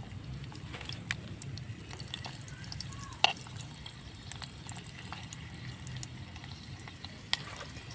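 A metal ladle stirring liquid with garlic and shallots in a clay pot over a wood fire: the liquid sloshes, with scattered small crackles and clicks and one sharp clink about three seconds in.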